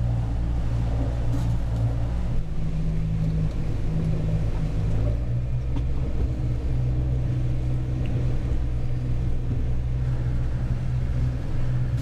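A small pilothouse boat's engine running steadily while underway, a low drone with a slight shift in pitch about four or five seconds in.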